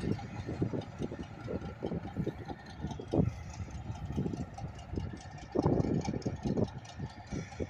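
Diesel locomotive engine idling, a steady low rumble broken by irregular louder low swells.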